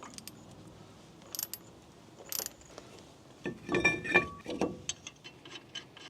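Torque wrench ratcheting on the wheel hub bolts, with scattered sharp metallic clicks and a cluster of ringing metal clinks about three and a half seconds in.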